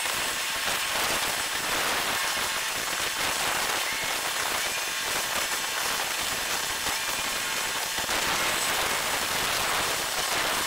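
Continuous dense crackling, hiss-like noise, evenly loud throughout, with no distinct events: outdoor dockside ambience sped up with the time-lapse picture.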